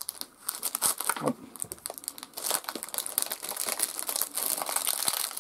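Packaging crinkling and rustling in dense, irregular crackles as a boxed milk frother is unwrapped by hand.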